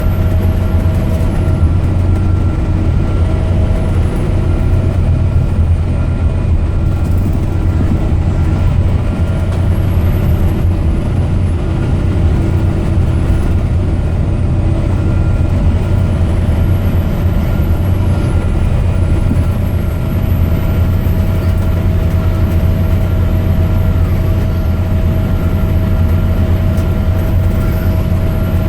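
Scania K270UB Omnilink single-deck bus's five-cylinder diesel engine running steadily, a constant low drone with steady tones over it and a faint high whine that rises and falls.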